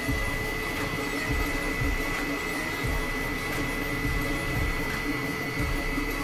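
Elegoo FDM 3D printer at work mid-print, its print head moving over the bed: a steady high whine over a constant mechanical hum.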